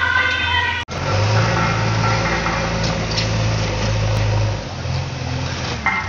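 A JCB backhoe loader's diesel engine running steadily with a deep hum, its note dropping a little about two-thirds of the way through. A snatch of music cuts off abruptly just under a second in.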